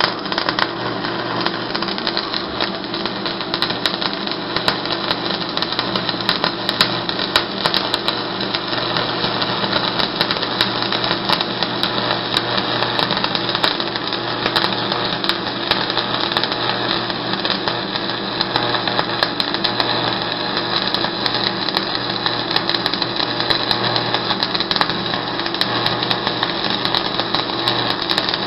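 Stick-welding arc burning continuously on quarter-inch steel diamond plate with 6013 electrodes: a steady crackling sizzle with a faint low hum under it.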